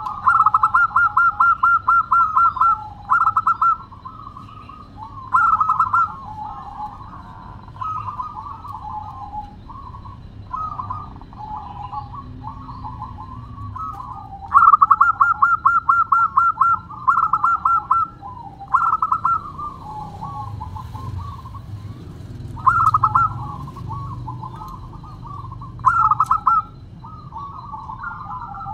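Zebra dove (perkutut) singing: bursts of fast, rapid-fire cooing notes, each lasting a second or more, with softer, lower coos between them. The loudest, longest burst comes about halfway through.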